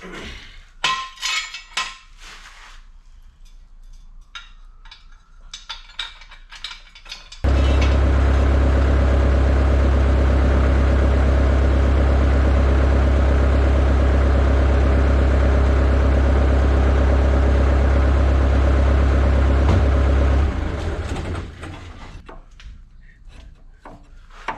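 Scattered metal clinks and clanks of tools and parts being handled. Then, about seven seconds in, a loud steady motor or engine starts abruptly, runs for about thirteen seconds, and winds down as it is shut off.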